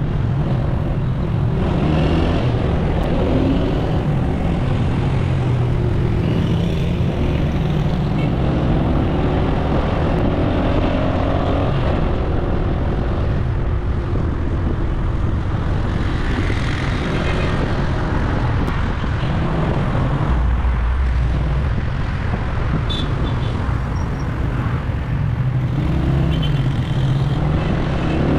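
Motorcycle engine running steadily while riding through road traffic, with wind noise on the microphone.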